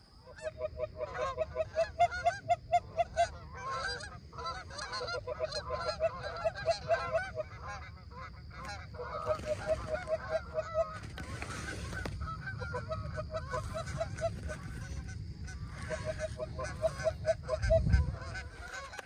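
Geese honking: quick runs of repeated honks in several groups with short pauses between them, over a low steady rumble. A dull thump comes near the end.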